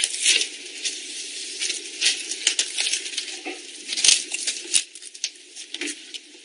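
Thin plastic window-insulation film crinkling and rustling in irregular small crackles and ticks as it is handled and pressed onto double-sided tape on the window frame.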